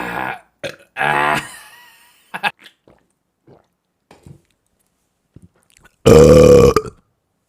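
A person burping: one burp trailing off at the start, another about a second in, and a long, much louder burp about six seconds in.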